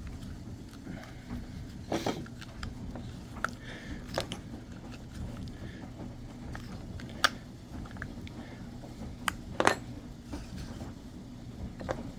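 Irregular light clicks and knocks of a chainsaw recoil starter being wound up and handled, a test of whether its recoil spring still slips off its hook.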